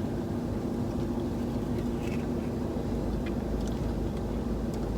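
Steady low rumble and hum of a car idling, heard inside the cabin, with a few faint small clicks.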